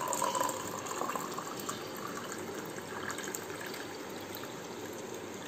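Nannari sarbath poured in a steady stream into a drinking glass, the glass filling up.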